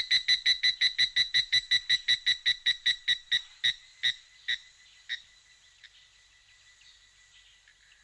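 Cricket chirping in a steady rhythm, about three to four chirps a second. About three seconds in, the chirps slow, thin out and weaken, leaving only faint scattered chirps near the end.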